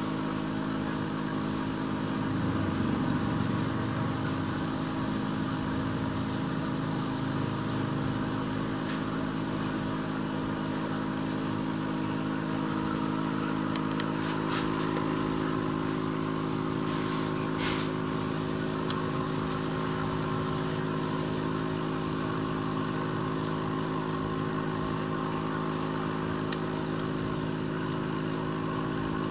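Steady electric hum of an aquarium air pump, with a faint high pulsing tone above it.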